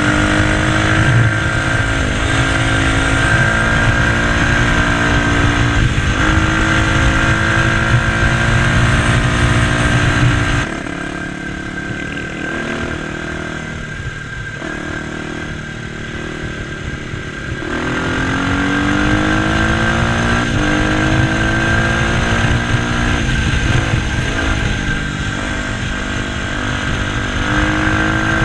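Kawasaki dirt bike engine under way, its pitch climbing and stepping down again with gear changes, over wind rumble on the microphone. Partway through, the engine note drops and quietens for several seconds as the throttle is closed, then climbs again as the bike accelerates.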